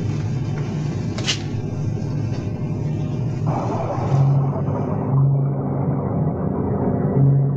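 Steady low rumble of a submarine's interior drone, with a single sharp click about a second in. From about four seconds in, low sustained music notes swell over the rumble.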